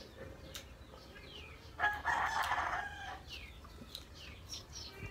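A rooster crowing once, starting about two seconds in and lasting about a second, with short high bird chirps scattered around it.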